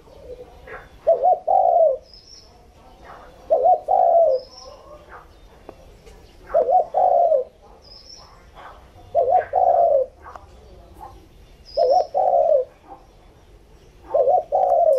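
Caged spotted dove cooing eagerly without a break. Its phrase of two quick notes and a longer coo repeats about every two and a half seconds, six times.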